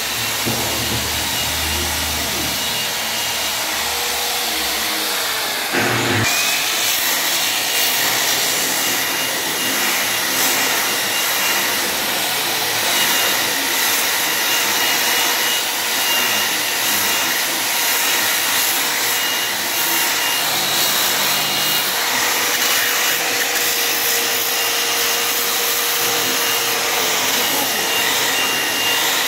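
Handheld electric polisher running steadily with a diamond polishing pad against a granite countertop edge, a steady motor whine over rushing noise. A brief knock about six seconds in, after which it runs louder.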